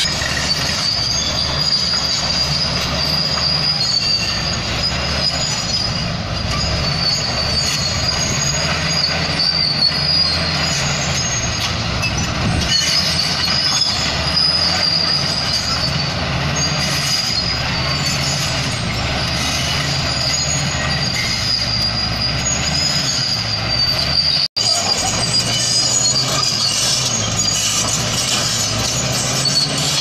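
Crawler bulldozer at work: its diesel engine runs steadily under a continuous high-pitched squeal from the steel tracks. The sound cuts out for an instant about two-thirds through.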